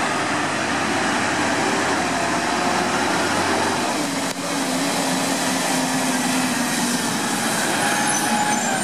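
CNG-powered Peterbilt garbage truck with an Amrep automated side-loader body driving toward, its engine running with a faint steady whine over an even hiss from the tyres on wet pavement.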